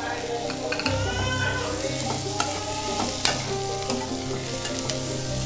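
Sliced onions and tomatoes sizzling in oil in a steel pan, stirred with a steel spatula that scrapes and clicks against the pan, with a sharp click a little past three seconds in. The onion and tomato are being fried down for a masala paste.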